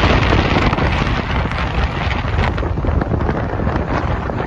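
Steady rush of wind buffeting the microphone from a moving train, over the low rumble of the train running.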